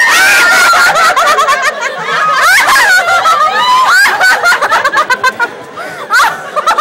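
Several women laughing loudly together, high-pitched and overlapping, breaking into quick rapid ha-ha pulses near the end.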